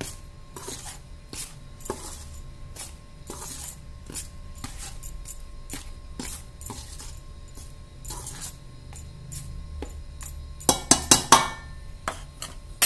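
Perforated steel spoon stirring dry flour and spices in a stainless steel bowl, scraping and clinking against the metal in short strokes. Near the end comes a quick run of louder clinks.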